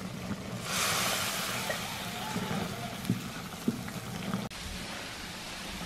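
Chile-marinated beef and pork strips sizzling on a hot comal as they are stirred and browned with a spatula. The sizzle swells loud about a second in, two sharp clicks come through it, and it drops suddenly to a quieter sizzle near the end.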